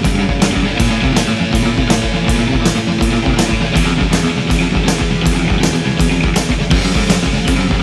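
Heavy metal soundtrack music, an instrumental passage of electric guitars and drums with a steady, fast beat.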